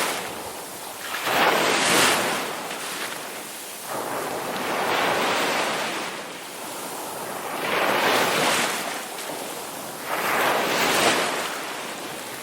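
Ocean waves crashing, the surf noise swelling and falling away four times, about every three seconds.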